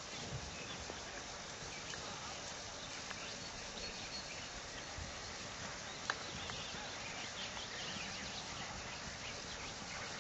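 Faint, muffled hoofbeats of a dressage horse moving on a sand arena, under a steady hiss of outdoor background noise. A single sharp click about six seconds in.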